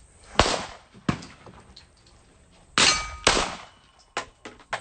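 Gunshots at a shooting range: three loud reports, with a few fainter shots between them, one followed by a brief metallic ringing.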